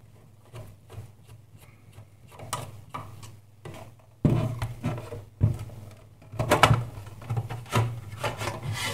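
Screwdriver backing screws out of a bench power supply's sheet-metal case, small clicks and scrapes, then the cover being worked loose and slid off the chassis with louder scraping rubs and knocks from about four seconds in.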